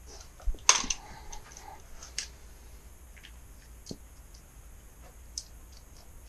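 Scattered light clicks and taps from handwork on a door-screen frame, with one sharper snap about three-quarters of a second in and a few softer ticks after it.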